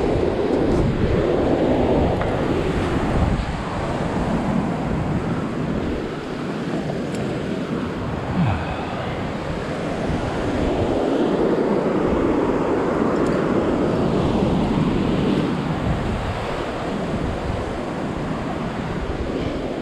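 Ocean surf breaking and washing over a rocky shore, swelling and easing in slow surges that are loudest near the start and again in the middle, with wind buffeting the microphone.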